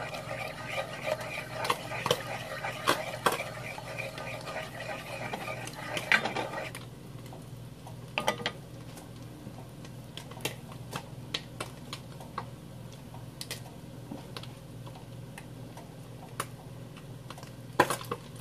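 Wooden spatula stirring and scraping beaten eggs around a nonstick frying pan for about the first seven seconds. Then the stirring stops and only scattered sharp pops of hot oil are heard, over a steady low hum.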